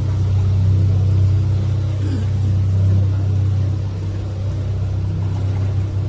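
Tour boat's engine running steadily: a low, even drone, easing a little about four seconds in.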